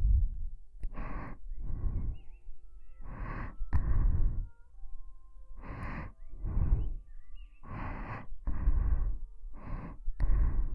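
Slow, close breathing into the ears of a binaural dummy head microphone, the breath puffing on the capsules with a low rumble. The breaths come in pairs about every two seconds.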